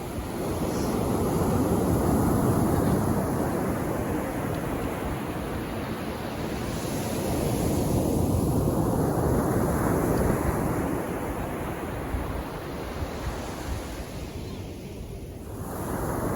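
Sea waves washing onto the beach, a steady surf sound that swells and fades as each wave comes in, about three times.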